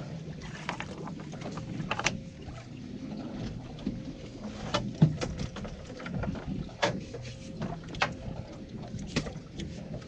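Fishing boat's engine idling with a steady low hum. Irregular sharp knocks and clunks break in over it, about seven in all, the loudest about five seconds in.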